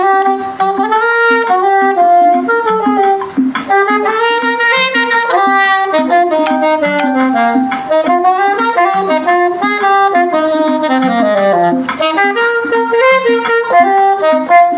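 Saxophone playing a hymn melody in long, smoothly connected notes over a steady, rhythmic accompaniment.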